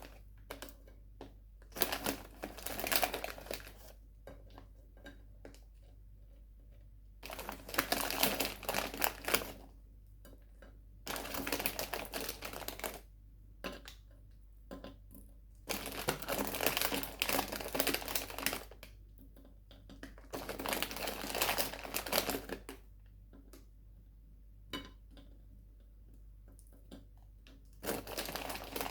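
Close, crisp crackling of sweets being eaten, coming in bursts of one to three seconds with short pauses between.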